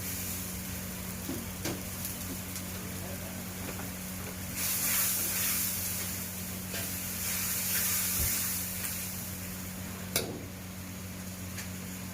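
Chicken crispy and sauce sizzling in a hot pan, swelling into two louder surges of sizzle about five and eight seconds in. There is a single sharp click near the end and a low steady hum underneath.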